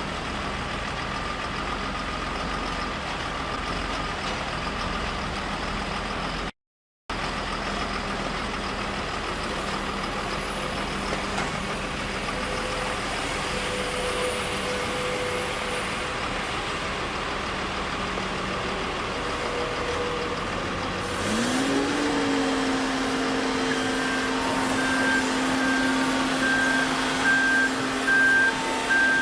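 Heavy construction machinery engines running steadily. About three quarters of the way through the sound changes: a machine whine rises and then holds, and a reversing alarm starts beeping, roughly one to two beeps a second.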